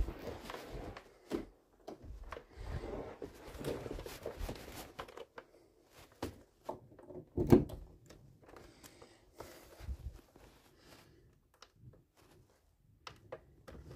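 Handling noises: scattered knocks, clicks and rustling as a person moves things about and handles a power cord, with one louder knock about seven and a half seconds in.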